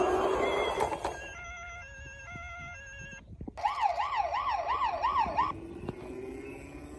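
Electronic toy police car siren warbling fast, about four rises and falls a second, for about two seconds in the middle, after a short tune of electronic beeps.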